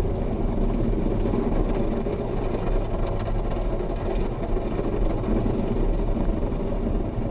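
Automatic car wash heard from inside the car: large rotating brushes scrubbing the car body while water sprays over it, a steady, dense rumbling wash.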